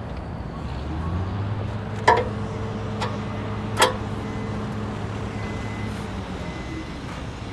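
Skid steer engine running steadily, with two sharp metallic clanks that ring briefly, about two and about four seconds in.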